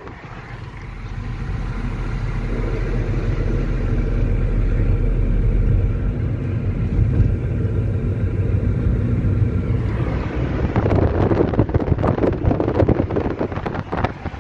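An engine running steadily with a low hum. About ten seconds in it gives way to rougher, gusty noise like wind on the microphone.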